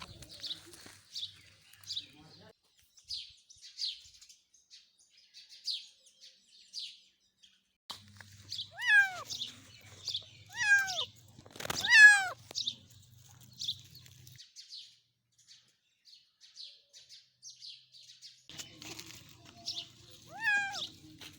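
A kitten meowing four times, short high mews that fall in pitch, the third the loudest. Small birds chirp steadily throughout.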